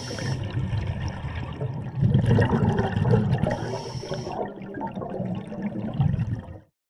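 Scuba regulator exhaust bubbles heard underwater, a rough bubbling gurgle from divers exhaling, swelling about two seconds in and cutting off suddenly near the end.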